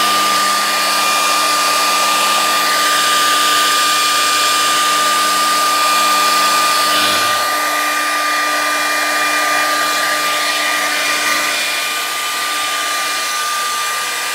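Electric air dryer running steadily, blowing air into a tent to dry it: an even rushing hiss of air with a steady motor whine over it.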